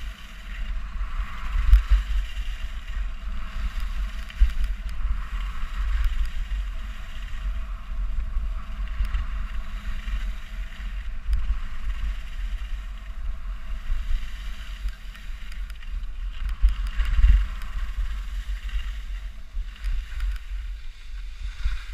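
Wind buffeting the microphone of a skier's camera during a downhill run, a gusty low rumble over the steady hiss and scrape of skis on packed, groomed snow. Both ease off near the end as the skier slows.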